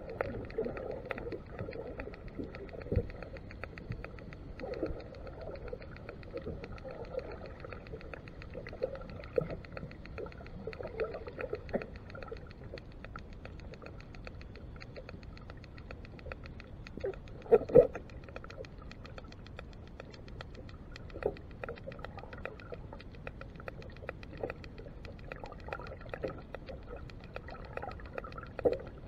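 Underwater reef ambience heard through a camera underwater: a dense, steady crackle of tiny clicks, with occasional muffled thumps, the loudest about 17 seconds in.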